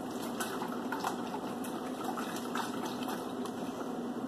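Steaks being mixed by hand in a marinade of beer, barbecue sauce and seasoning inside a stainless steel stockpot: irregular wet sloshing of the liquid.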